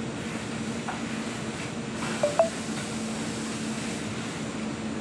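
Steady hum of factory machinery and ventilation, with one short high squeak a little over two seconds in.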